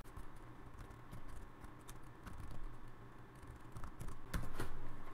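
Computer keyboard typing: irregular key clicks as a line of numbers and brackets is entered, with a louder keystroke a little over four seconds in.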